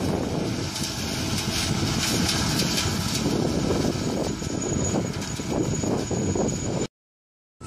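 New Holland 3550 AL combine harvester running while threshing sunflowers: a steady, dense engine and machinery noise. It cuts off suddenly about seven seconds in.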